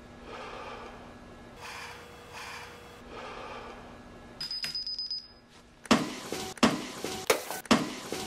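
A man breathing heavily in three slow breaths over a faint hum. A brief thin high tone follows, then a run of loud sharp knocks over the last two seconds or so, which stops abruptly.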